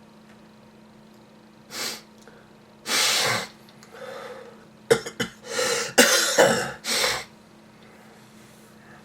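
A person coughing: a few separate coughs, then a quick run of harsh coughs about halfway through. It is a lingering cough of a cold that the sufferer puts down to ordinary flu.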